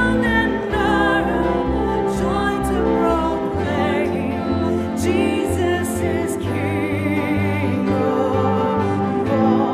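A classical-style voice singing with strong vibrato over instrumental accompaniment with held bass notes.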